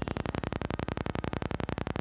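Dog growling: a long, steady, low growl made of rapid even pulses.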